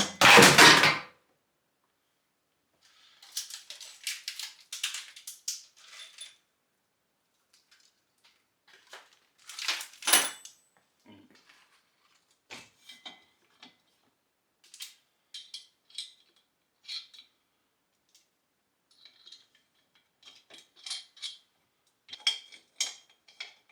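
Metal dumbbell-rack parts and bolts knocking and clinking as the rack is bolted together by hand: a heavy knock in the first second, a run of rattling clinks a few seconds later, another loud clank near the middle, then scattered light metallic taps with brief ringing.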